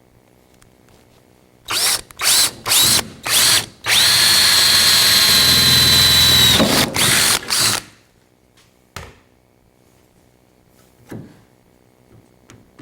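Power drill run in several short trigger bursts, the motor whining up each time, then held steadily for about two and a half seconds and finished with two more brief bursts. It is drilling a new quarter-inch hole for a metal panel clip.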